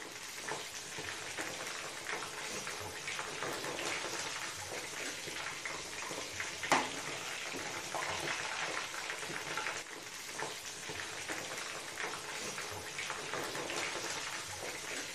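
Cornflour-coated chicken pieces deep-frying in hot oil: a steady, dense crackling sizzle, with one sharper click about two-thirds of the way in.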